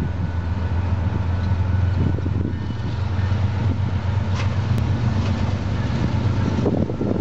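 Steady low rumble of an approaching diesel freight train's lead locomotives, still some distance off.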